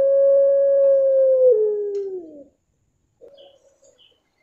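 Puter pelung, a long-voiced domestic collared dove, giving its drawn-out crying coo: one long held note that drops a step about one and a half seconds in and slides down before stopping. A short second coo follows about a second later.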